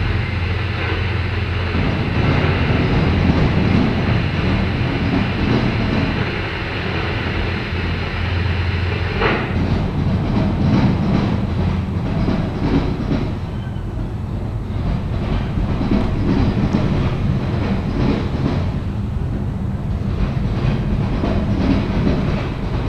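CSX freight train's autorack cars and boxcars rolling past, a steady heavy rumble with wheels clacking over the track. There is a sharp bang about nine seconds in.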